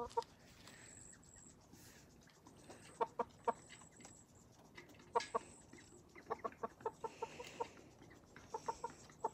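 Chickens clucking in short notes that come in small runs, with quiet gaps between.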